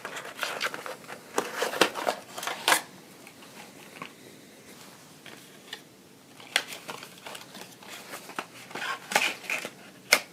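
A small white cardboard box being slid open and handled, with irregular scrapes, rustles and taps. It quietens for a couple of seconds around the middle, then the handling picks up again.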